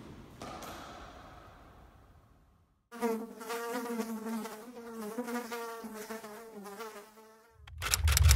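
A fly buzzing: a wavering hum that starts about three seconds in and runs for about four and a half seconds. Near the end a loud low rumble cuts in.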